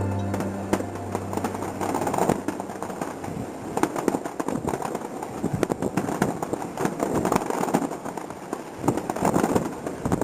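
Aerial fireworks going off in quick succession, a dense run of cracks and crackling bursts. Background music fades out about a second in.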